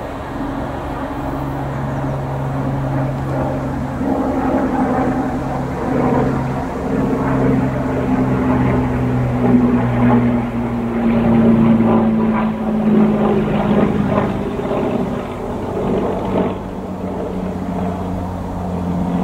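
Class 73/9 electro-diesel locomotives running on their MTU diesel engines as the test train moves away: a steady engine drone whose pitch sinks slowly. Wheels clatter over rail joints and pointwork through the middle of the passage.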